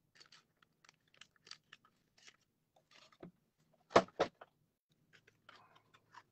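Clear plastic packaging crinkling and clicking as it is handled. About four seconds in come two sharp knocks, a quarter second apart, as the plastic tray of miniatures is set down on the desk mat.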